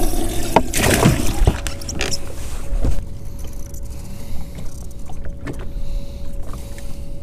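Handling noise on a bass boat: a few sharp knocks and rustles in the first three seconds as the rod is handled and a worm rig is cast. After that it goes quieter, with a faint steady hum and low wind rumble underneath.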